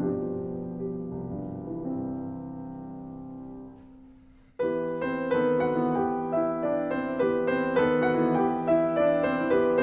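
Background piano music: one piece fades out about halfway through, and a brighter, louder piano piece starts suddenly.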